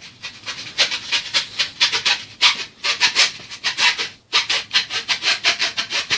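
A blade sawing back and forth through corrugated cardboard, in quick rasping strokes about two to three a second.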